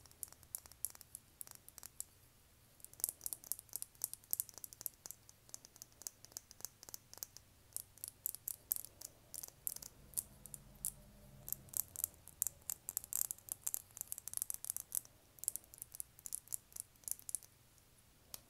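Fingernails tapping and clicking on a plastic lip gloss tube, fast and irregular. The taps are sparse at first, crowd together from about three seconds in, and stop just before the end.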